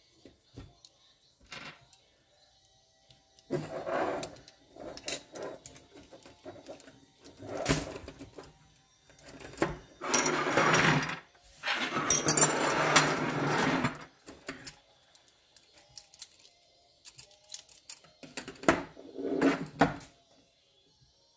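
Metal air-hose fittings and wrenches being handled on a workbench while a fitting is tightened onto a coiled air hose: clinks, scraping and rattling in several separate bursts, loudest in the middle.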